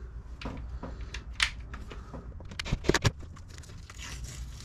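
Blue painter's tape being pulled and torn at the window frame, with a few sharp clicks of handling around three seconds in.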